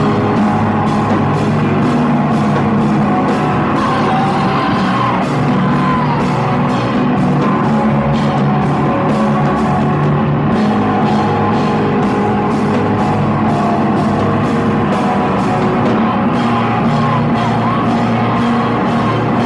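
Loud rock music: a driving drum beat with cymbal hits about two or three times a second under dense instruments, with yelled vocals.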